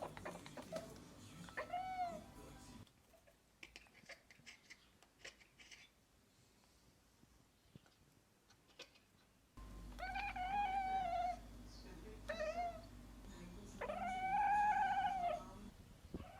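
Bengal cat chirping at prey: a string of short arched chirps and longer meow-like calls, the longest and loudest near the end. The calls are the sign of a cat excited by a bird or other prey it is watching. In a quieter stretch in the middle only faint clicks are heard.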